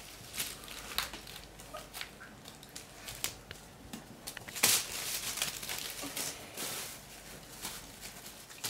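A plastic bag crinkling and rustling on a tiled floor as kittens scramble over it and pounce at a toy, with scattered light taps and scuffs. The loudest rustle comes about halfway through.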